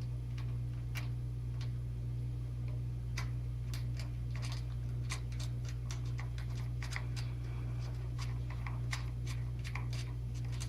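Light, irregular clicks and ticks of small metal bolts and nuts being fitted and tightened by hand into a router table switch's mounting holes, over a steady low hum.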